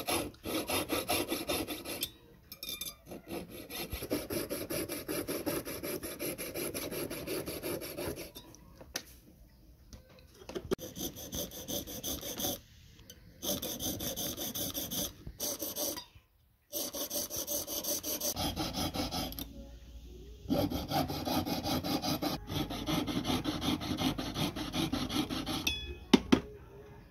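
Jeweller's piercing saw cutting through a metal ring with a fast back-and-forth rasp of the fine blade, in runs that stop and start several times. A sharp click comes near the end.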